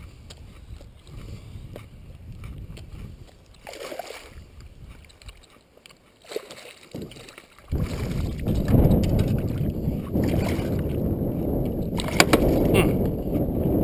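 Wind buffeting the microphone: a quieter stretch with a few faint handling clicks, then a sudden dense low rumble that starts about halfway through and keeps going. Near the end, a single sharp knock as a hand splashes in the water at the side of the boat.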